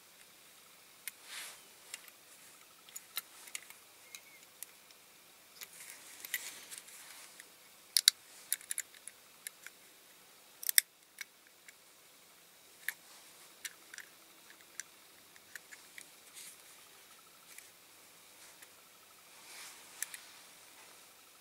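Irregular small clicks and taps with a few brief rustles as the parts of a diecast toy car are handled and pressed together; the sharpest clicks come about eight seconds in and again near eleven seconds.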